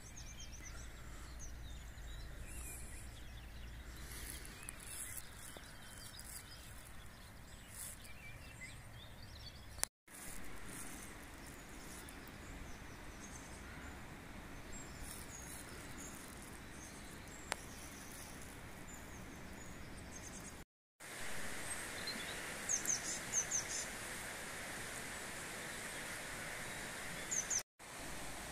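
Outdoor ambience: a steady background hiss with small birds chirping briefly in short high calls, several about two-thirds of the way through and again near the end. The sound cuts out for a moment three times.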